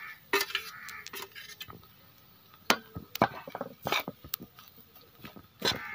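A spatula stirring dried prawns into roasting grated coconut in a pan: irregular scrapes, rustles and sharp knocks of the spatula against the pan.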